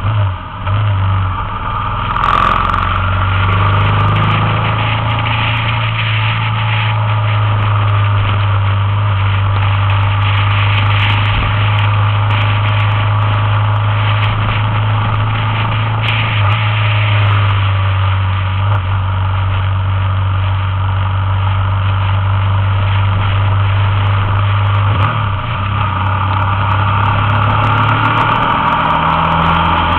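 Motorbike engine running steadily while riding, heard with wind and road noise rushing past. The engine note drops a little about halfway through and rises again near the end.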